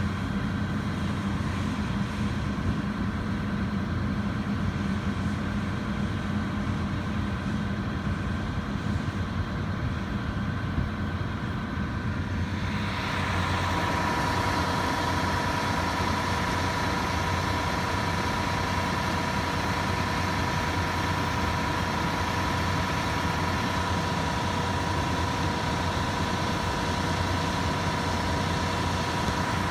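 John Deere S-series combine harvester running steadily while harvesting wheat, a continuous engine hum. About twelve seconds in, the sound shifts to a brighter hiss with a steady high whine over the engine.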